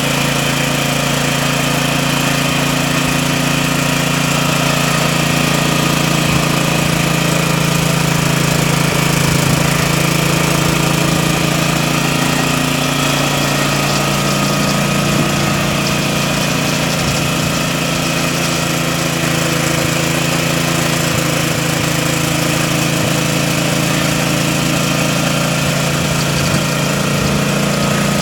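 Band saw running steadily with no load: an even motor hum with the whirr of the blade, unchanging throughout.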